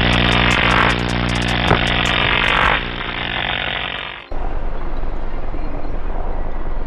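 Energy-orb sound effect: a low electric buzzing hum with a crackling hiss that comes and goes. It dies down and cuts off about four seconds in, replaced by a steady rushing noise with a low rumble, the sound laid under the falling ice chips effect.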